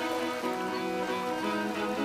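Background music: a string ensemble playing sustained notes.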